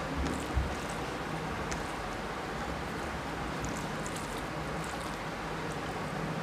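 Fingers mixing rice and fish curry on a glass plate: faint soft squishing and small clicks over a steady background hiss, with one dull knock about half a second in.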